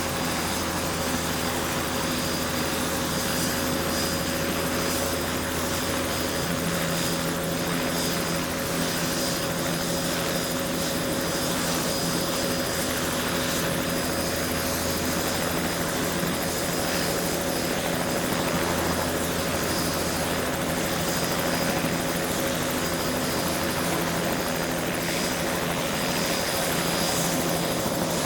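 Helicopter running steadily: a constant hum with a thin high whine above it, and another low tone joins about six seconds in.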